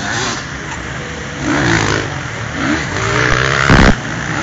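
Motocross motorcycle engines revving on the track, the pitch rising and falling several times as the throttle is worked over a jump. A brief loud blast near the end as a bike comes over the jump close by.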